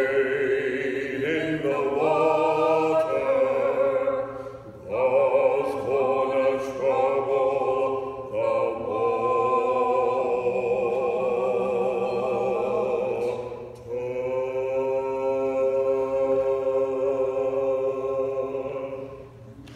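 A man and a woman singing a cappella together, long held notes with vibrato in phrases of a few seconds, the last note fading out near the end.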